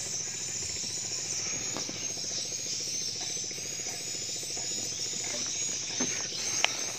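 Steady high-pitched insect chirring over a continuous outdoor background hiss, with one sharp click near the end.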